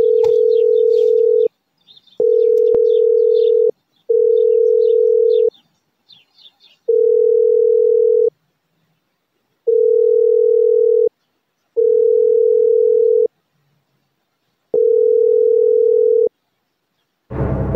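Telephone ringing tone of an outgoing call waiting to be answered: a single steady tone sounding seven times, each about a second and a half long, with uneven gaps of silence between.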